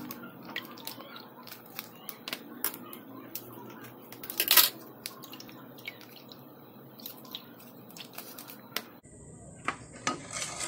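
Plastic pineapple-tidbits pouch crinkling as it is squeezed to drain its juice into a glass, with juice dripping and scattered small clicks. A louder crackle comes about four and a half seconds in.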